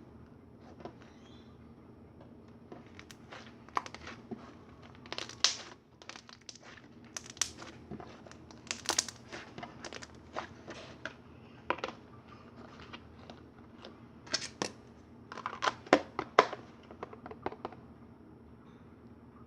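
Slime being squished and poked by hand: irregular sticky clicks and crackling pops, coming in clusters.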